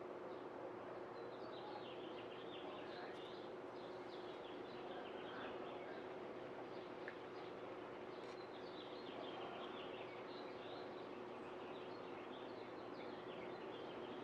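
Faint background birdsong: many short, high chirps and twitters, dense from about a second in, over a steady hiss and a low, even hum.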